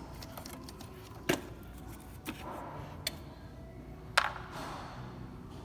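A few sharp, separate clicks and knocks, four in all and spread out, from tools and parts being handled while an engine's ignition coil is unbolted. A low steady hum runs underneath.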